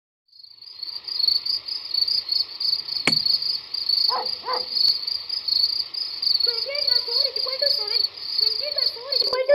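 Crickets chirping steadily as a night-time ambience, fading in at the start, with a single sharp click about three seconds in.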